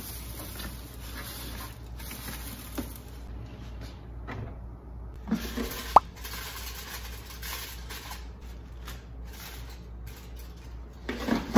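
Kitchen handling sounds: a plastic bin liner rustling, then an air fryer basket pulled out and handled, with a sharp click about six seconds in and a clatter of knocks near the end.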